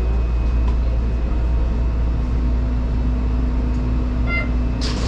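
Shonan Monorail suspended, rubber-tyred monorail car, heard from the driver's cab: a steady low rumble of the running train. A steady hum comes in about two seconds in, and a short hiss sounds near the end.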